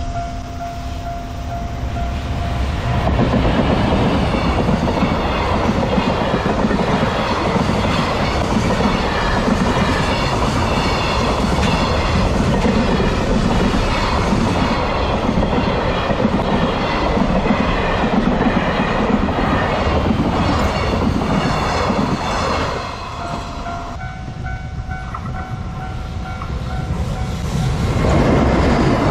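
A level-crossing warning bell rings with a steady tone while a long freight train hauled by an EF210 electric locomotive passes, its wheels clattering over the rail joints for about twenty seconds. As the train clears, the bell is heard again, then another loud rush of train noise comes near the end.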